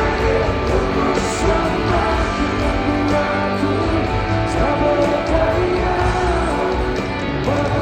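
Live rock band music played loud through a festival sound system, with a singer's voice over guitars and a heavy beat.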